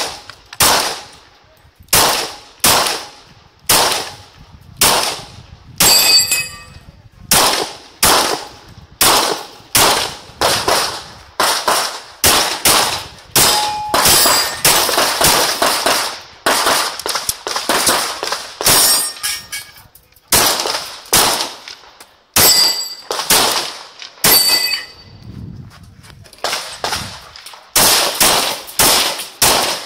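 Rapid pistol fire from a Glock 35 in .40 S&W, dozens of shots in quick strings with short pauses between. Steel targets clang and ring after several of the hits.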